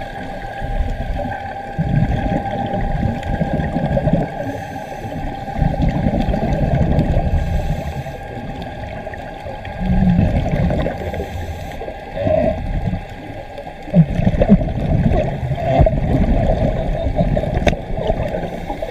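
A scuba diver's regulator breathing heard underwater through the camera housing, with bursts of exhaled bubbles gurgling every few seconds. A faint steady tone sits underneath.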